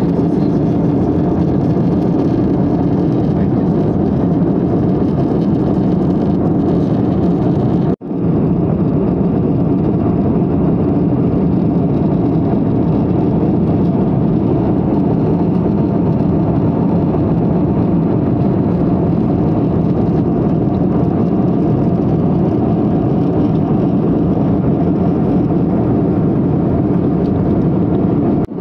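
Steady roar of engine and airflow noise inside the cabin of an Airbus A320-family airliner in flight. It cuts out for a split second about eight seconds in, where two clips are joined.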